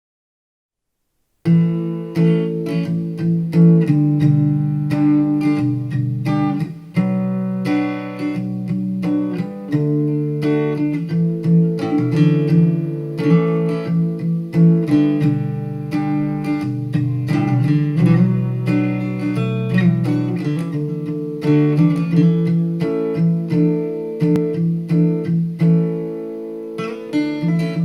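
Acoustic guitar intro of a song, strummed chords, starting after about a second and a half of silence. It is played back over a hi-fi stereo and picked up by a microphone.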